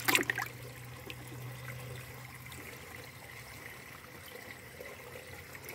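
Water splashing and sloshing in a bucket as a hand gropes among small fish to catch one. There is one louder splash right at the start, then softer, steady sloshing.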